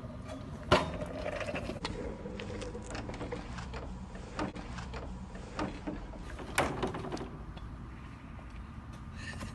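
Knocks and clatters of a stunt scooter and a plastic construction barrier being handled as the scooter is lifted over and the rider climbs across: a sharp knock about a second in, then a few more between about four and seven seconds in.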